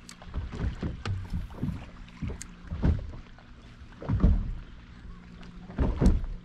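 Lake chop slapping against the hull of a bass boat in irregular low thumps, with a few sharp clicks.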